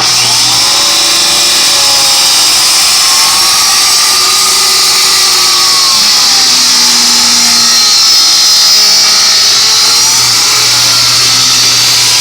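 Electric power saw cutting through a wooden board, its motor running loud and steady with a whine that rises and falls as the blade loads up in the wood.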